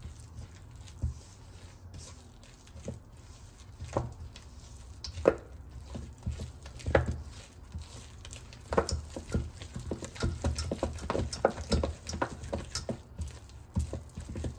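Silicone spatula stirring and folding thick cookie dough in a stainless steel bowl: soft squishing with short taps and scrapes against the metal, growing much more frequent about halfway through as the dough comes together.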